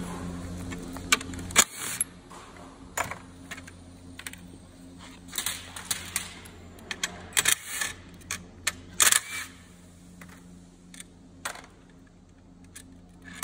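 Scattered clicks, taps and light rattles of plastic and metal parts as gloved hands handle the covers and fuse housing of an opened Kia EV6 high-voltage battery pack.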